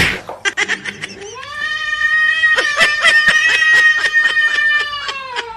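Domestic cat yowling: one long drawn-out call that rises at the start, holds for about four seconds, and sags slightly at the end. A run of short clicks sounds alongside it.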